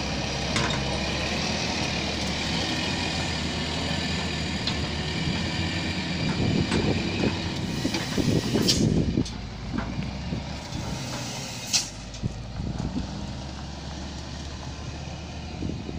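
Diesel engine of a 10-wheeler flatbed truck running under the load of a tracked excavator as it crawls along a rough dirt track. A louder rough noise swells about six to nine seconds in, with a few sharp clicks, and the engine then drops lower as the truck pulls away.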